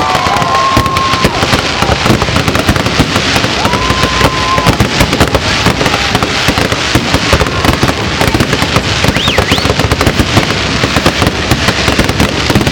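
Fireworks display: a continuous barrage of bangs and crackling bursts, many a second, with a few short whistling tones over it.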